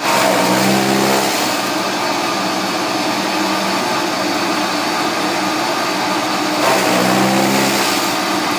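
Electric chaff cutter with pulverizer, driven by a 3 hp single-phase electric motor, running loud and steady while chopping green fodder stalks. A deeper humming tone stands out from the noise near the start and again about seven seconds in.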